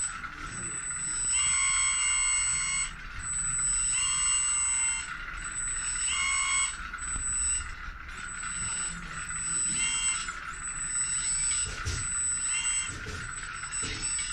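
Electric hydraulic pump of a 1/14-scale RC tracked skid-steer loader running with a steady whine. A higher, multi-tone whine cuts in five times, for about a second at a time, as the hydraulics are worked.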